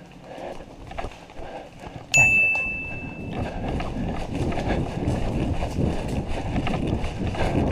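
Footsteps through dry leaf litter and undergrowth on a forest floor: light scattered steps, then a louder, rapid run with rustling from about three seconds in. About two seconds in, a sudden sharp steady high tone, like a whistle, sounds for about a second.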